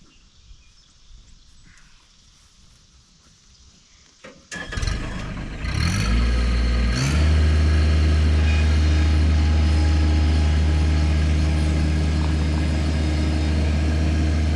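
An engine starts about four and a half seconds in, picks up speed over the next two seconds and then runs steadily and loudly.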